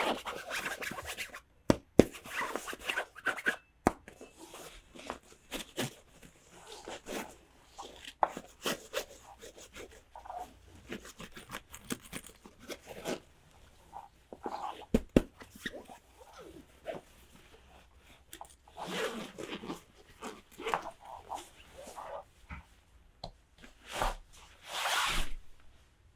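Toy unboxing handling: plastic packaging rustling and tearing in short bursts, mixed with many sharp clicks and taps of small plastic toy pieces.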